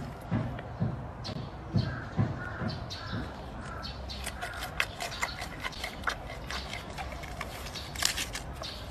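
Giant panda chewing a peeled bamboo shoot: irregular wet crunches and clicks of the stalk breaking between its teeth, with a louder crunch near the end as it bites in again.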